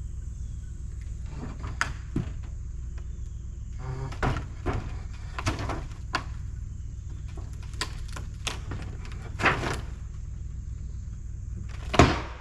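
Scattered knocks and thuds of wooden framing being worked loose, with one loud bang about 12 seconds in.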